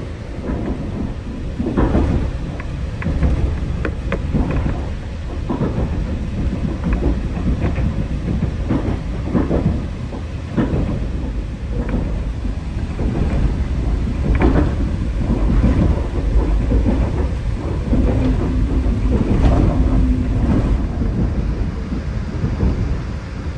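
Running noise heard inside a moving Caledonian Sleeper Mark 5 carriage: a steady heavy low rumble of wheels on the rails, with irregular knocks and rattles from the coach throughout.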